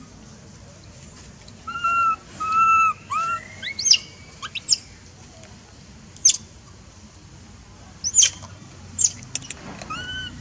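Short, clear whistled calls, a few in quick succession about two seconds in and one more near the end, and sharp, very high chirps that sweep downward, scattered through the middle, over a steady low background noise.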